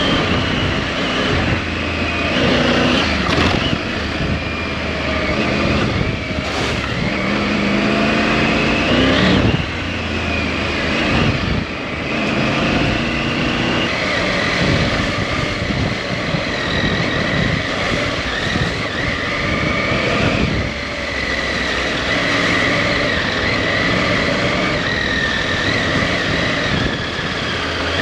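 Motorcycle engine running under way, its speed rising and falling again and again as the rider accelerates and eases off along a rough lane.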